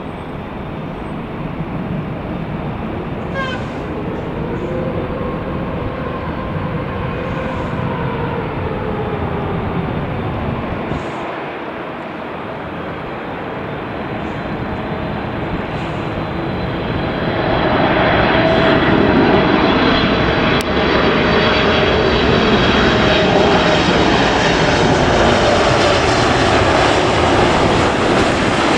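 Boeing 747-8's four GEnx turbofan engines on final approach, a steady jet rumble with whining tones that slide in pitch. It grows clearly louder a little past halfway as the plane comes low overhead.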